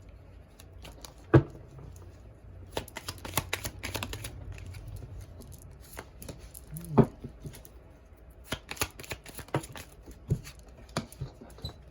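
A deck of tarot cards being shuffled by hand: a run of quick flicking and rustling card noises, with two sharper knocks, about a second in and near the middle.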